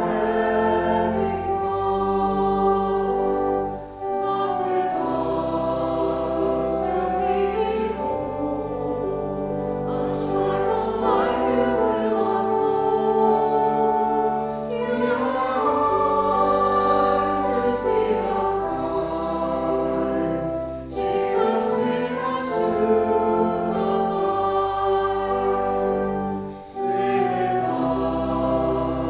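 A hymn sung by voices over sustained chordal accompaniment with a steady low bass line, pausing briefly between phrases about four, twenty-one and twenty-seven seconds in.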